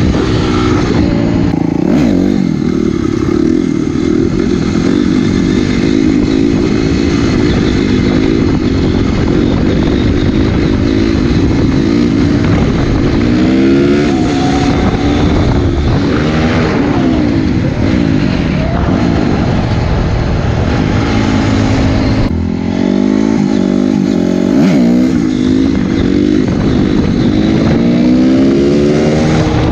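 Honda CRF250R's single-cylinder four-stroke engine being ridden hard, its revs rising and falling again and again through the gears. About three-quarters of the way through the engine note drops off briefly before climbing again.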